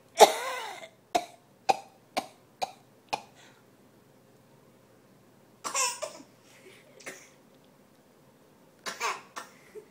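Deliberate fake coughing: one loud voiced cough, then five short sharp coughs about half a second apart, then a few more scattered coughs, with a quick cluster near the end.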